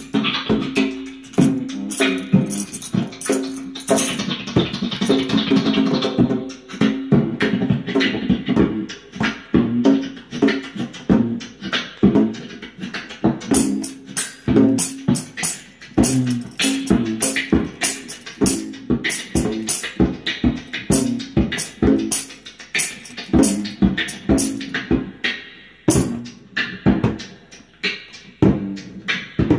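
Beatboxing into a handheld microphone, with a djembe hand drum played alongside. Sharp percussive mouth clicks and hits go in a fast, steady rhythm over a low held tone.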